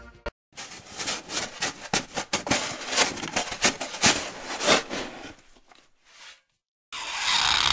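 Irregular crunching and rustling in dry leaf litter, as of footsteps moving through it, lasting about five seconds and fading out. A short burst of hiss follows near the end.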